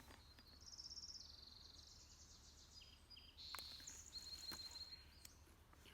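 Faint bird song outdoors: a few high, rapid trills, one after another, with a couple of soft clicks among them.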